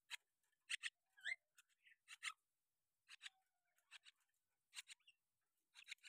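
Near silence broken by faint scattered clicks and taps, with a couple of brief, faint high chirps.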